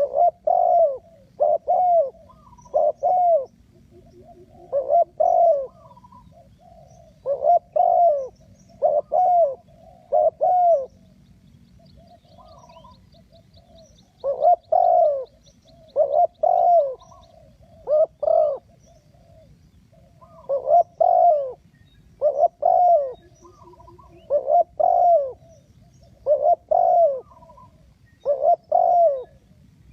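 Spotted dove cooing over and over in short phrases of a few low notes, each phrase a second or two apart. Faint chirps of small birds sound in the background, with a brief high trill about halfway through.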